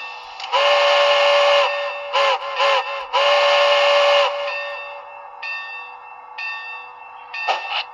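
HO-scale model steam locomotive's sound decoder blowing a quilled steam whistle through its small speaker: a long blast, a few short toots, then another long blast. Softer steam hissing and a couple of chuffs follow near the end.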